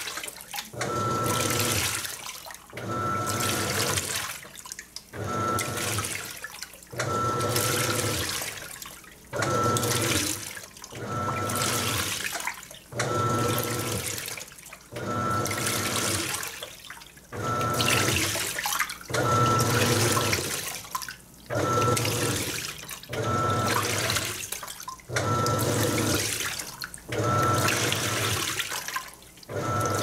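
Panasonic NA-F180P7T 18 kg top-load washing machine in its wash cycle with a king-size comforter. It agitates in strokes about every two seconds, each stroke a motor whine with water sloshing, and short pauses between.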